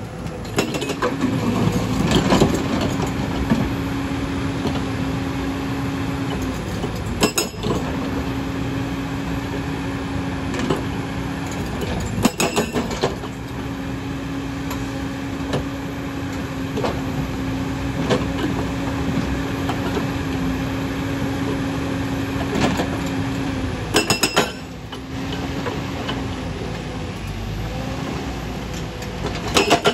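Excavator-mounted hydraulic rock breaker hammering stone, a steady hard pounding over the excavator's running engine. It breaks off briefly a few times with sharp clicks.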